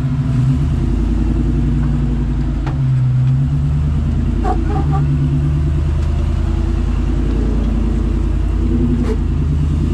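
Jeep Wrangler engine pulling at low revs as it crawls up a rock ledge, the note swelling and easing slightly with the throttle.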